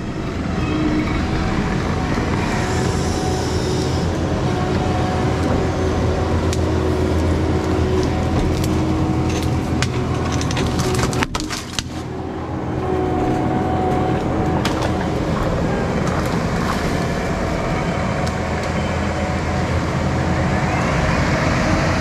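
Compact track loader's diesel engine running steadily under load while it works a tree shear, with a cluster of sharp cracks about eight to twelve seconds in as the tree and branches are cut and break. The engine sound drops briefly near the middle, then picks up again.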